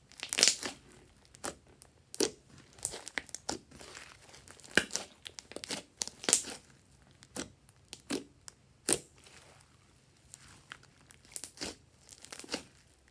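Hands squeezing and pressing a mass of glitter slime, making irregular sharp pops and crackles, with short quiet gaps between them.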